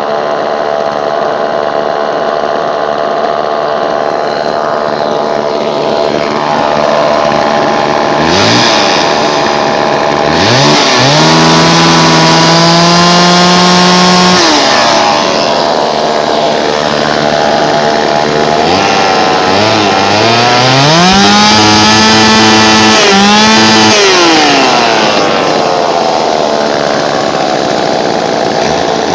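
Homelite Super 2 two-stroke chainsaw idling steadily, then revved up twice, each time held high for about three seconds before dropping back to a smooth idle. The engine runs without missing, a sign that the carburettor has just been adjusted correctly.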